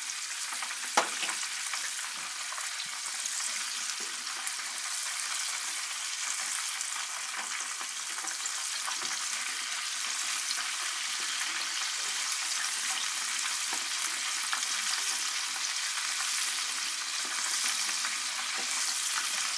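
Breaded chicken pieces deep-frying in a saucepan of hot oil: a steady sizzling crackle, with one sharp click about a second in and a few light knocks.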